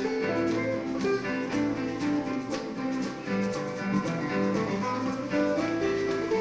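Live band music with guitar lines over a bass.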